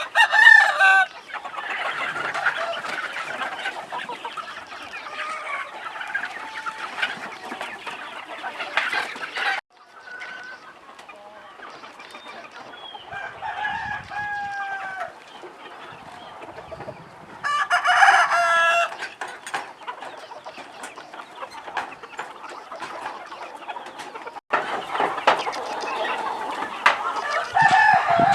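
Flock of free-range chickens clucking continuously, with a rooster crowing at the start and again past the middle.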